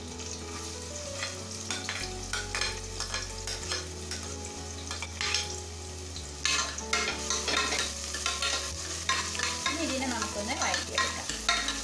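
Chopped onions sizzling in hot oil in a pressure cooker, stirred with a spatula that scrapes against the pan; the sizzling and scraping grow louder about six and a half seconds in. The onions are being sautéed until they turn translucent.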